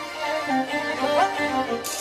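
Middle Eastern dance music led by a bowed-string melody that slides between notes, with a sudden bright hit near the end.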